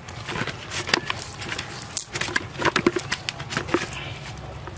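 Irregular clicks, taps and rustles from handling a cast net and its catch of fish, coming thickest in the second half.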